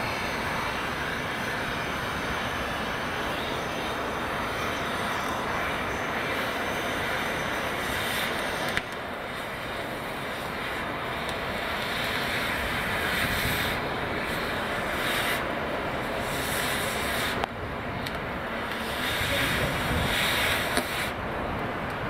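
Gas cutting torch hissing steadily as it burns through rusted fixings to free a steam locomotive's ash pan, the sound changing abruptly about nine and seventeen seconds in.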